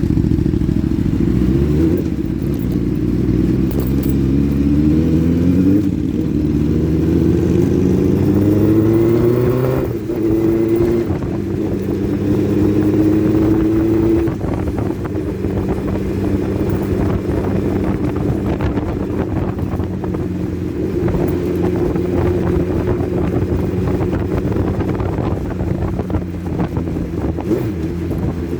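Motorcycle engine accelerating through the gears, its pitch climbing in several steps over the first ten seconds, then running at a steady cruise.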